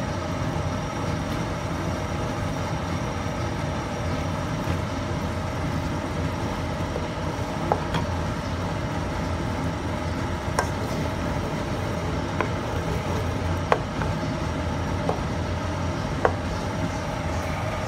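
Steady mechanical hum over the simmering sambal in a wok. Six or so light, sharp taps of a wooden spatula against the wok as it is stirred, spread over the second half.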